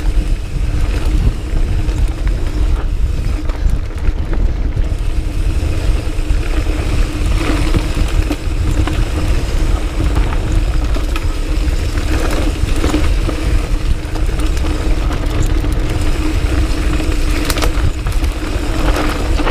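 Diamondback Sync'r mountain bike riding down a dirt trail: heavy wind rumble on the microphone over tyre and trail noise, with a steady hum and a few sharp knocks as the bike hits bumps.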